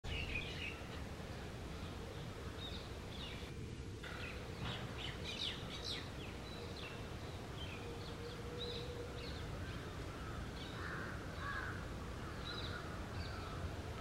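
Outdoor background noise with a steady low rumble, dotted throughout with short, high bird chirps and calls that come thickest about four to six seconds in, over a faint steady tone.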